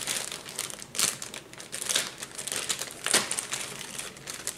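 Clear plastic parts bag crinkling and rustling in irregular bursts as a kit part is worked out of it by hand.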